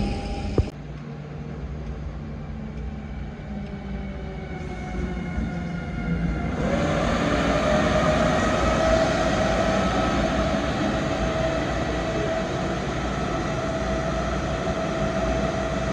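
Siemens Vectron electric locomotive running light past at low speed: wheel and rail noise under a steady electric whine. It grows louder about six and a half seconds in as the locomotive comes close, and there is a sharp cut with a click near the start.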